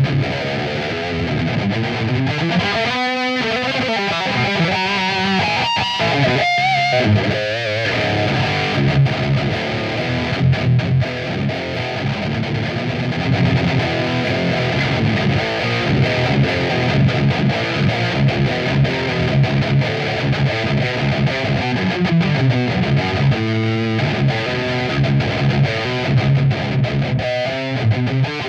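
Distorted electric guitar playing continuous heavy riffs through a Black Cat Amps Djenttonic overdrive pedal into a guitar amp, with a few sliding notes a few seconds in.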